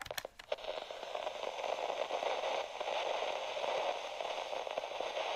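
Steady crackling static hiss of an intro sound effect, with a few sharp clicks in the first half second.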